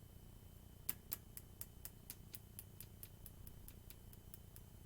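A run of light, evenly spaced clicks, about four a second, starting about a second in and growing fainter toward the end.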